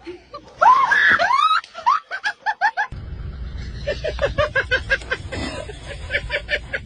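Person laughing hard in high-pitched squeals and quick rhythmic bursts. About three seconds in, another laugh in rapid short pulses follows over steady background noise.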